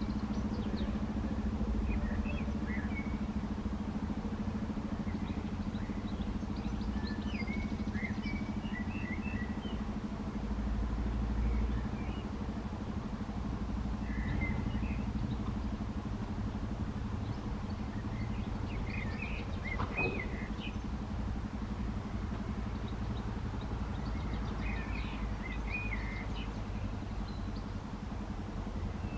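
Outdoor ambience: a steady low hum with a low rumble of traffic underneath, and scattered short bird chirps. No siren is sounding.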